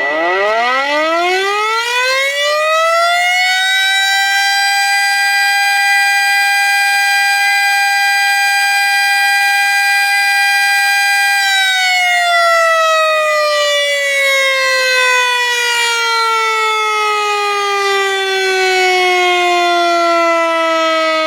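Tornado warning siren winding up over about four seconds to a steady high wail, holding it for about seven seconds, then slowly winding back down.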